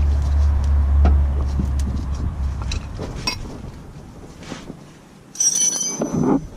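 Steel wrenches clinking and tapping, with one sharp metallic clink that rings briefly about five and a half seconds in. A low rumble fades away over the first three seconds.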